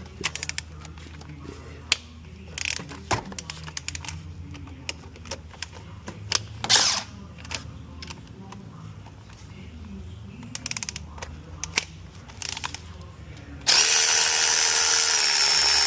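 Scattered metallic clicks and clanks of hand tools, then near the end a power tool runs steadily for a few seconds with a high whine, loosening the alternator mounting bolts.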